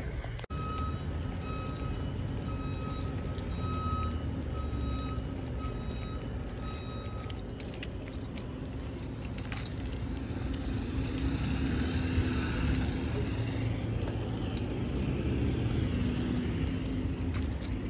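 Steady low rumble of a motor vehicle running close by, with a high electronic beep repeating about every two-thirds of a second for the first seven seconds or so. A light metallic jingle of a dog's leash clip and collar comes and goes over it.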